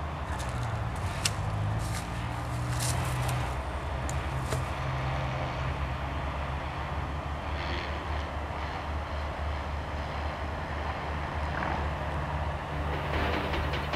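Steady low rumble of vehicle traffic, with a few sharp clicks in the first five seconds.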